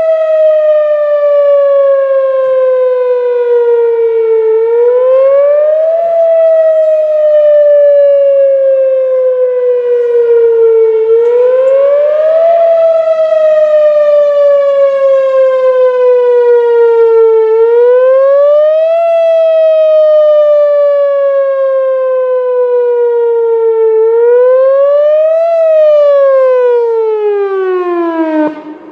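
A siren wailing in a repeating cycle: the pitch climbs quickly, then slides slowly down, about every six and a half seconds. On the last cycle the pitch drops further and the sound stops just before the end.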